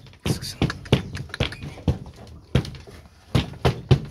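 A rapid, irregular series of sharp knocks and clatter, about three a second, from one-month-old piglets pushing and squeezing between the wooden slats of their pen.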